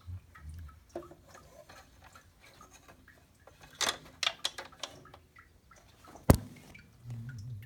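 Light clicks and clinks of metal tools and parts during a tractor teardown: a quick run of ticks about four seconds in and one sharp metallic knock about six seconds in.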